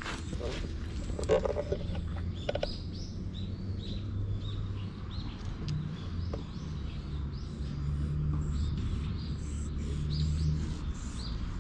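Small birds chirping over and over, short high notes, over a steady low rumble.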